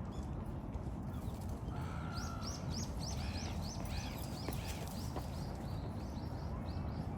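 Sparrows chirping: a quick run of short chirps begins about two seconds in and carries on almost to the end, over steady low background noise.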